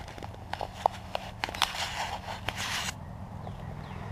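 Footsteps crunching and crackling through dry leaf litter and brush, with scattered snaps of twigs, stopping abruptly about three seconds in.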